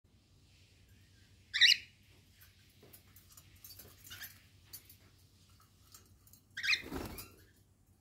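Cockatiel screeching twice: a sharp, high call about a second and a half in and a longer, harsher one near the end, with soft chirps in between.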